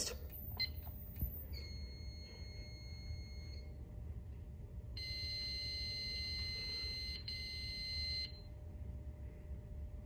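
Two steady high-pitched piezo beeps from a Honeywell ANN-80 fire alarm remote annunciator as its lamp-test button, which acts as reset, is pressed. The first lasts about two seconds and the second, louder one about three seconds, after a couple of light button clicks near the start.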